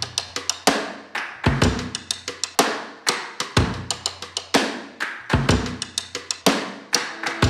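Background music: a drum kit playing a steady beat, with bass drum and snare hits and a deep kick about once a second.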